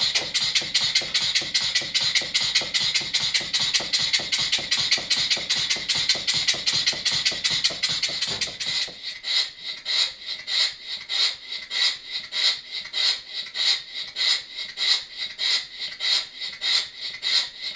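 Small single-cylinder horizontal model steam engine running on compressed air: a rapid, rasping run of exhaust beats from its slide valve. For the first half the beats are dense and rough, with a low knocking, while the valve timing is off; about halfway through they turn into cleaner, evenly spaced puffs of about three a second once the eccentric sheave has been set to the correct position.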